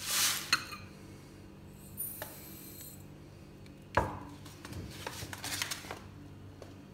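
Dry quinoa grains poured from a bag into a small glass bowl, a brief rushing patter at the start. About four seconds in comes a sharp glass knock, followed by a short rattle and clinking of grains shifting in the glass bowl.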